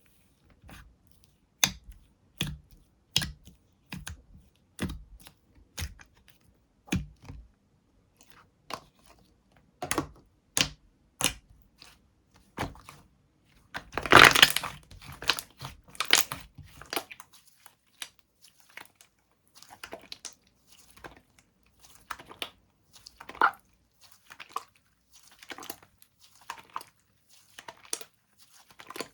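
Slime being squeezed, poked and stretched by hand: a run of sticky pops and clicks, at first about one every second, then a louder, denser crackling stretch about halfway through, and softer scattered crackles after it.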